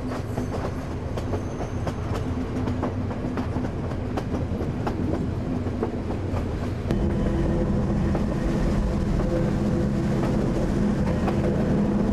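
Train running along the track: wheels clicking over the rail joints over a steady rumble and low hum, which grows louder about seven seconds in.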